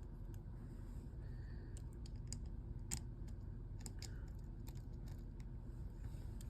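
Scattered small clicks and taps of a Samsung Galaxy S9's small parts and screws being handled and fitted during reassembly, the sharpest click about three seconds in, over a low steady hum.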